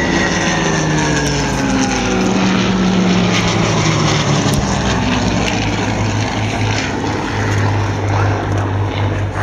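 Piston-engined WW2 fighter passing, its engine note falling in pitch over the first few seconds as it goes by, then a steady low engine drone.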